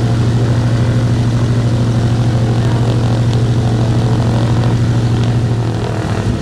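Douglas C-47 Dakota's Pratt & Whitney R-1830 Twin Wasp radial engine running steadily on a ground run, turning its propeller. The engine note is low and even, and eases slightly near the end.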